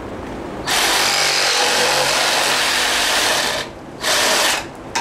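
Cordless reciprocating saw cutting through a PTO drive-shaft tube clamped in a vise, in one long run and then a short second run as the cut finishes. A sharp clack comes just before the end.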